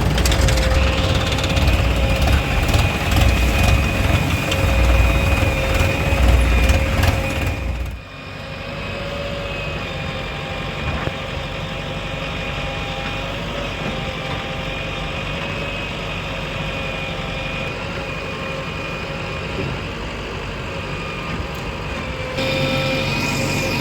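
Diesel engines of a backhoe loader and tractors running, with a steady whine over the engine note. The sound is heavy and loud at first, drops abruptly about eight seconds in to a steadier, quieter running, and steps up again near the end.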